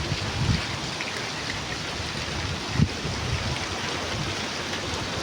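Steady rain falling, an even hiss, with a few low thumps; the loudest thump comes about three seconds in.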